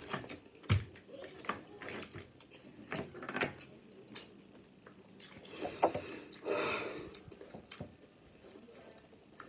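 Wet eating sounds of a seafood boil: crab-leg shells snapping and fingers squelching through sauce, with chewing. The result is a string of sharp, irregular cracks and smacks and a wetter stretch about two-thirds of the way in.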